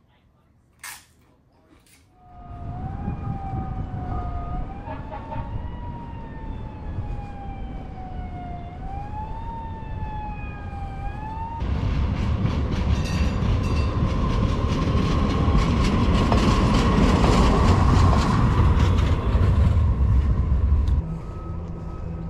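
A wailing tone that slowly falls and then quickly climbs again, three times over, above a rumble. From about halfway, a louder rushing rumble with a steady ringing tone as a Muni light-rail train comes along its tracks. The sound cuts off abruptly near the end.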